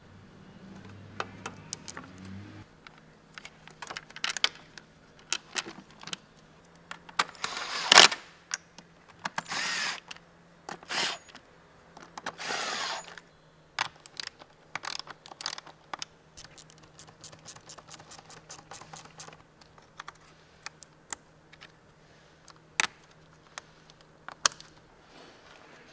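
Plastic airbox parts clicking and knocking as a new engine air filter is seated and the lid fitted, then a cordless screwdriver running in a few short bursts near the middle to drive the airbox lid screws, the loudest about a third of the way in. Scattered clicks follow as the intake hose and connector are refitted.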